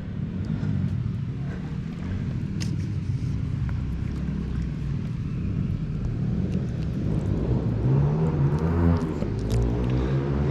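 A steady low rumble on the microphone outdoors at the river, with scattered light clicks and handling knocks. About eight seconds in, a short wavering pitched sound rises over it.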